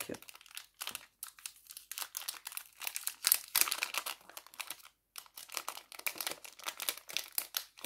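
Jewelry packaging crinkling and rustling as it is handled and opened to take out small rings, with a short pause about five seconds in.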